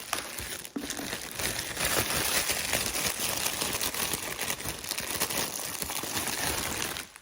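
Plastic bread bag crinkling steadily as it is opened and handled for slices, stopping near the end.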